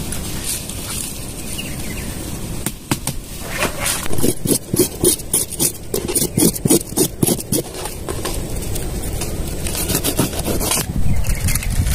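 A run of quick scraping strokes, about three a second, starting about three seconds in and stopping near eight seconds, over steady low background noise.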